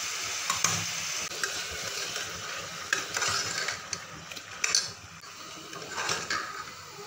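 Metal spoon stirring and scraping mutton with ground coconut masala paste in a pressure cooker pot, over the sizzle of the meat frying, with scattered clinks of the spoon against the pot.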